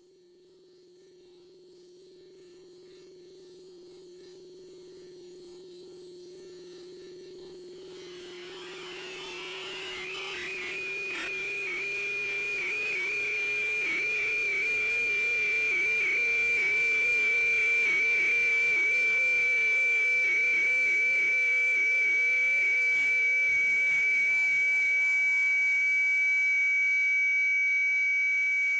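Tinnitus-masking tones: several steady electronic sine tones layered together, a very high whistle-like tone over a low tone, fading in over the first several seconds. About ten seconds in, a mid-pitched tone joins and wavers slightly in pitch.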